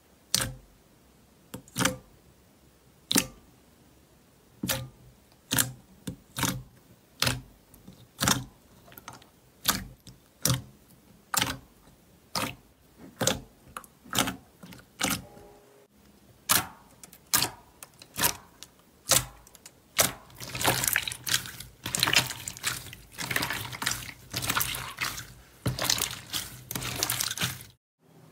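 Fingers pressing and squeezing a glossy, wet black slime in a glass bowl, each press giving a sharp wet click or pop, about one a second. Later the pops crowd into a dense run of crackling.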